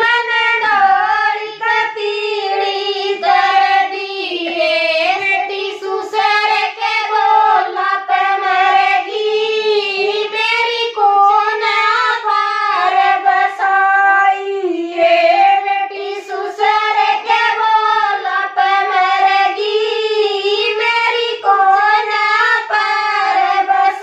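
Women singing a Haryanvi jakdi folk song in high voices, an unbroken melody with long held notes and no instruments.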